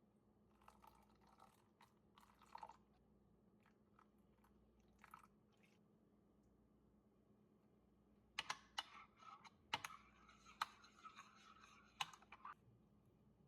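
Faint crunching and light clicks: a few soft rustles early on, then a busier run of sharp clicks and crunchy noise for about four seconds near the end.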